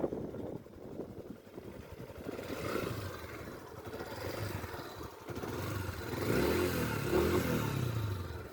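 2024 Yamaha XTZ 150 motorcycle's single-cylinder air-cooled engine running at idle, revved up and back down twice in the second half. It runs smooth and quiet, without much noise.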